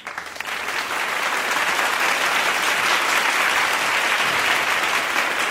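Large audience applauding: dense, steady clapping that builds over the first second and then holds.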